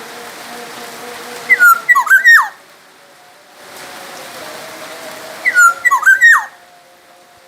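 Black-naped oriole (kepodang emas) singing: two short, loud phrases of fluting whistles that slide downward, about a second and a half in and again near the end, over a steady hiss.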